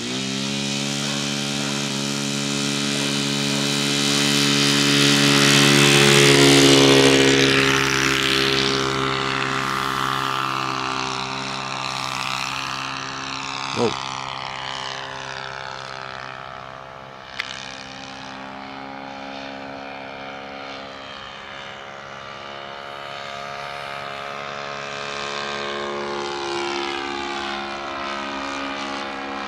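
Radio-controlled tow plane's engine opening up to full power for takeoff with a sailplane in tow. It grows louder to a peak about six seconds in, then falls in pitch and fades as the plane climbs away, and swells again near the end. Two brief sharp sounds break in around the middle.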